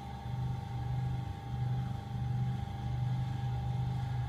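Electric potter's wheel running under load as a clay vase is thrown: a steady low motor hum with a thin constant whine above it, swelling slightly just after the start.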